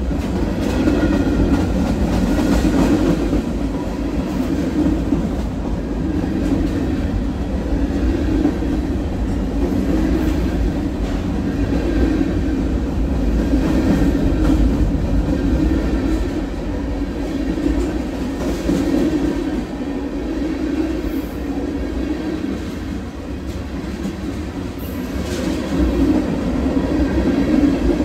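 Freight train of tank cars and covered hoppers rolling past close by on the adjacent track: a steady, loud rumble of steel wheels on the rails that carries on without a break.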